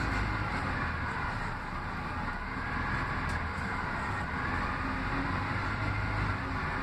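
Orion VII CNG transit bus heard from inside the passenger cabin while riding: steady engine hum and road noise.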